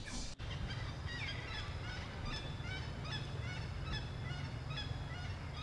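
Many short chirping animal calls, several a second and overlapping, each sliding in pitch, over a steady low rumble. The sound drops out briefly a third of a second in.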